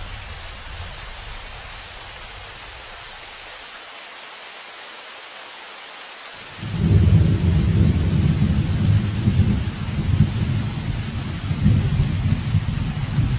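Steady hiss of heavy rain; about seven seconds in, a loud deep rumble sets in suddenly and keeps going under the rain.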